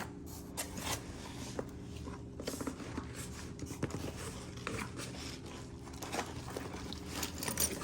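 Irregular crinkling, rustling and small clicks of hands emptying a box of costume jewelry and its plastic packaging, over a steady low hum.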